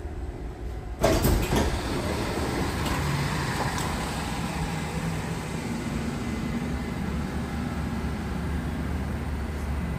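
Dubai Metro train noise: a low rumble, then about a second in a sudden, louder rush of noise that carries on steadily.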